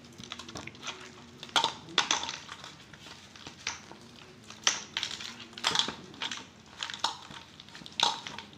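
Ghee being beaten by hand with ice cubes in a steel plate: ice cubes knock and scrape against the steel in irregular sharp clicks over a soft squelching rub, with the loudest knocks about two, five, six and eight seconds in.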